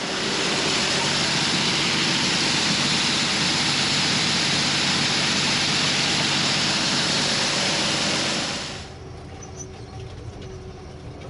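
A vehicle engine runs steadily under a loud rushing hiss. About nine seconds in, the hiss cuts off sharply and the engine's low drone carries on alone.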